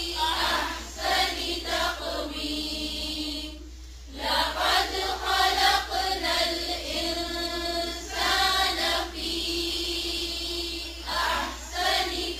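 Voices chanting Quranic Arabic recitation in unison, in phrases with long drawn-out vowels and short breaks, the loudest dip about four seconds in.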